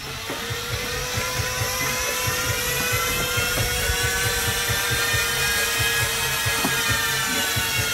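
Two rear-wheel bike trainers whining under a maximal 6-second sprint: the tyre-on-roller whine climbs in pitch as the riders spin up over the first few seconds, holds high, then eases slightly near the end, over an uneven low rumble.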